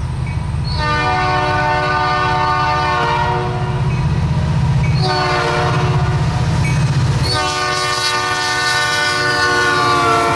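Canadian National freight locomotive's air horn sounding three long blasts for a grade crossing, the last two close together and the last ending as the locomotive reaches the crossing. A low rumble of the oncoming train runs underneath, with wheel clatter starting near the end.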